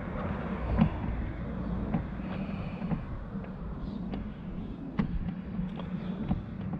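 Scattered light clicks and taps of the wiper scuttle panel's clips and screws being fastened by hand, over a steady low hum.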